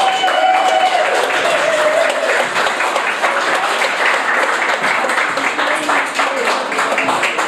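A sung note held for about two seconds, then an audience clapping and applauding.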